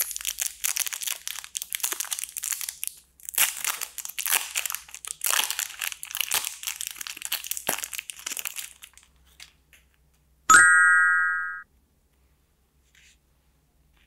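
Plastic candy wrapper crinkling and tearing as it is torn open and peeled off by hand, in repeated bursts. Then a single short ringing tone, about a second long.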